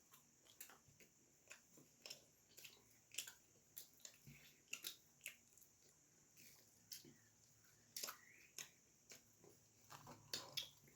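Close-miked chewing of puri and vegetable curry: quiet, irregular wet mouth smacks and clicks, a few every second.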